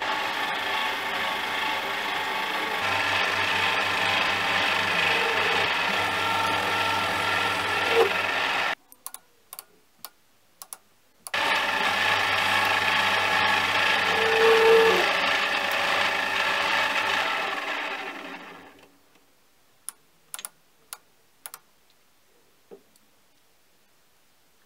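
Mini lathe running with a steady gear whine while a carbide insert cuts tool steel. About nine seconds in it stops for a couple of seconds with a few clicks, then runs and cuts again before dying away, leaving a few light clicks in near quiet.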